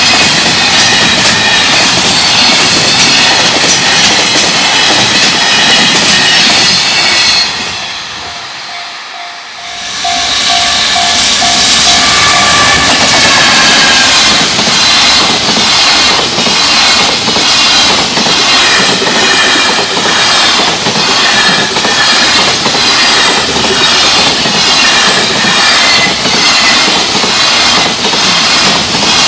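Freight trains passing a level crossing at speed, with loud wheel clatter over the rail joints. Partway through, the train noise drops briefly and the crossing bell's rapid repeated ding is heard. Then a JR Freight EF210 electric locomotive and its container wagons rush past with steady clickety-clack.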